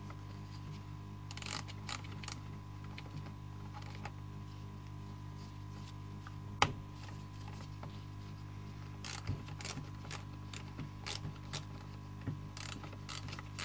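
Scattered light metallic clicks and ticks from a socket wrench tightening the carburettor mounting nuts on a Stihl MS 170 chainsaw, with one sharper click about halfway and a quick run of clicks in the second half, over a steady low hum.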